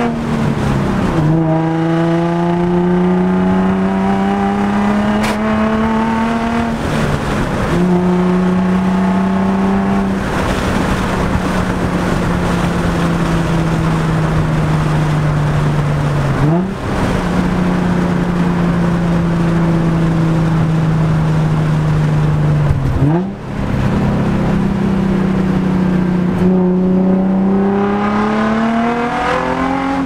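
Infiniti G35 coupe's 3.5-litre V6 engine heard from inside the cabin while driving and shifting through the gears. The revs climb and then drop sharply on upshifts about a second in, near eight seconds and at the end. In between, they sink slowly as the car slows, with two brief upward jumps in engine pitch on downshifts.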